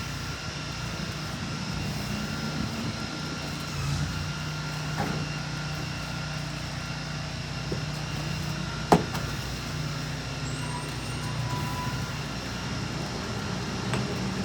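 An engine running steadily: a low hum with steady higher tones above it, and a single sharp click about nine seconds in.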